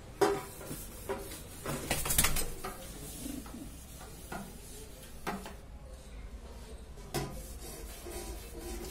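Rock pigeon cooing, with several sharp knocks and clatters, the loudest cluster about two seconds in.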